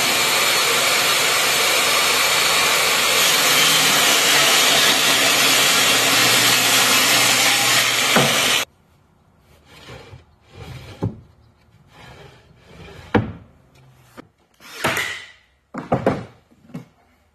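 Benchtop table saw ripping a plywood panel, a loud steady sawing noise that cuts off abruptly about eight and a half seconds in. After that come a scatter of short knocks and scrapes of plywood drawer parts being handled on a workbench.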